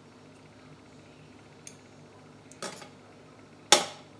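Scissors trimming the ends of straightened hair: a faint click, then two sharper metallic snips about a second apart near the end, the last the loudest.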